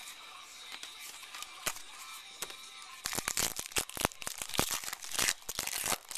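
Baseball card pack wrapper being torn open and crinkled in the hands: a quieter stretch of soft clicks and handling, then about three seconds of rapid, loud crackling and rustling from about halfway in.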